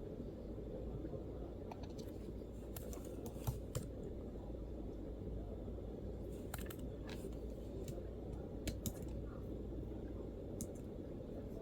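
MacBook keyboard typing in a few short, sparse bursts of keystrokes, with pauses between, over a steady low background hum.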